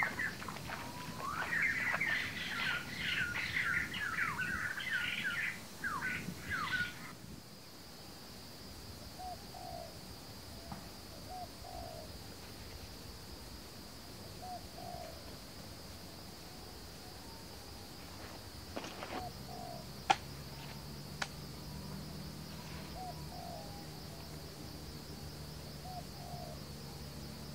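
Small birds chirping and singing busily for the first several seconds, then a sudden change to a steady high insect drone with a bird's soft low call repeating every few seconds. A few sharp clicks come about two-thirds of the way through.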